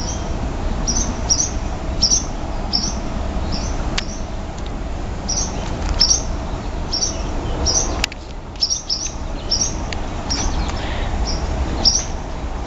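Barn swallows giving short, sharp, high alarm calls over and over, about one or two a second: the angry calls of swallows defending their nest.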